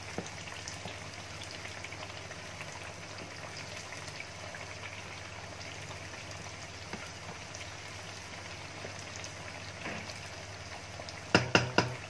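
Spiced sweet potato fritters deep-frying in a pan of hot oil, a steady crackling sizzle. Near the end there are three quick, sharp knocks close together.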